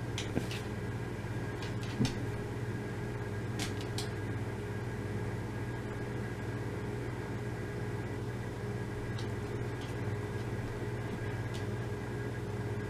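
Steady low hum of a running household appliance, holding several constant tones, with a few light clicks and taps, the clearest about 2 seconds in and near 4 seconds.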